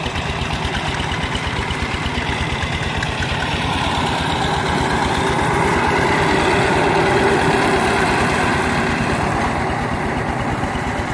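Two-wheel walking tractor's single-cylinder diesel engine running under load with a fast, steady chug as it drives a rotary tiller through dry rice stubble. It grows a little louder in the middle.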